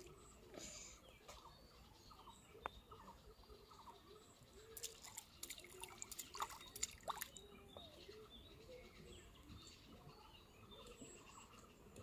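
Faint birds calling over and over, with a quick run of sharp clicks and small splashes about halfway through.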